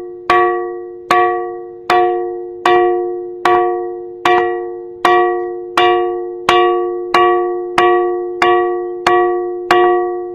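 Ringing rock ('bell rock') struck over and over in a steady rhythm, about fourteen strikes, each giving a clear bell-like ring that fades before the next strike.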